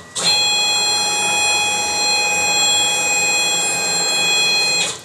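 Quick CNC K6100 router's axis drive motors moving the gantry at a rapid jog: a steady, high whine of several tones that starts suddenly and cuts off shortly before the end.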